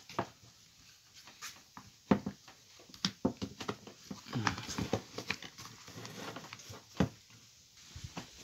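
Clicks and knocks of a plastic power-drill housing being handled and pressed together by hand, with sharp knocks about two, three and seven seconds in.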